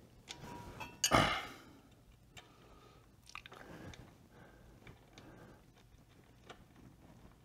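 Faint clicks and small rattling handling noises as a tire's valve stem is refitted, with one brief louder rush of noise about a second in.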